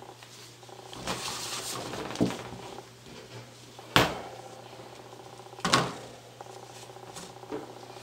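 Small white metal wire cage being handled with gloved hands: rustling early, then two sharp metallic clicks of the wire frame, at about four seconds and just under six seconds, with a few lighter ticks.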